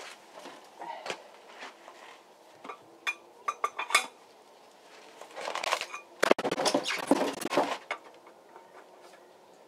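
Handling noises from a floor jack and its packaging: scattered light clicks and knocks, then a louder stretch of scraping and rustling from about five to eight seconds in.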